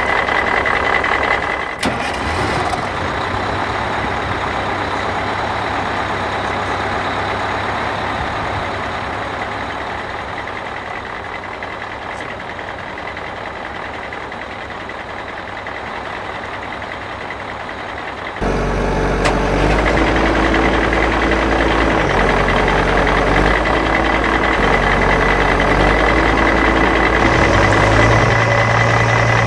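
Truck engine sound, running steadily with a high steady tone over it, then switching abruptly about eighteen seconds in to a louder, deeper engine running.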